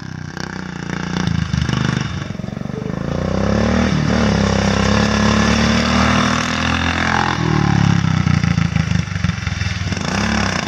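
Ungoverned Briggs & Stratton OHV engine with a Mikuni-style carburetor on a riding lawn mower, driving off under throttle. Its pitch climbs a few seconds in, holds at high revs for a few seconds, then drops back near the end.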